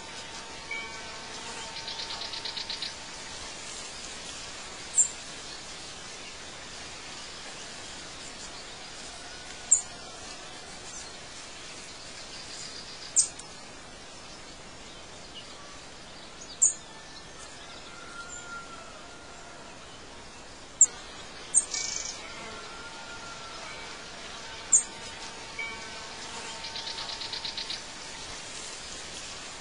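Birds chirping outdoors: short, sharp high chirps every three to five seconds, and a buzzy rapid trill twice, over a steady background hiss.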